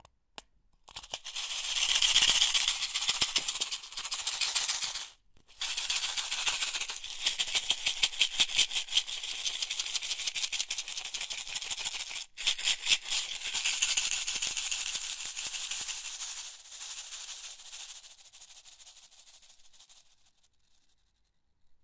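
Office pins rattling in their box in a dense, shaker-like rattle of many small metal clicks. It breaks off briefly twice and fades away near the end.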